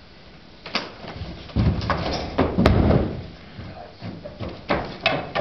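A door banging shut amid a run of knocks and heavy thumps, loudest about two to three seconds in.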